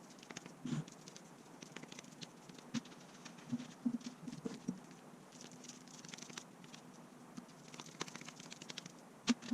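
Hands patting and pressing freshly ground beef into hamburger patties: soft, irregular pats and small clicks.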